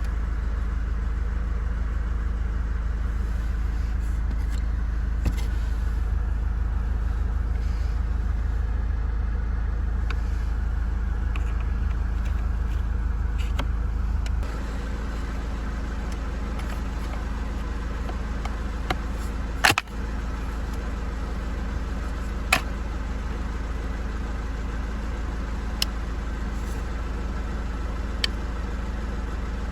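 Car engine running steadily at idle, with a low rumble that drops slightly in level about halfway through. A few sharp clicks come in the second half.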